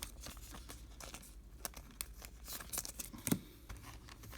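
Baseball trading cards and their pack wrapper handled by hand: light rustling and crinkling with many soft clicks as cards are slid and flipped, one sharper click about three seconds in.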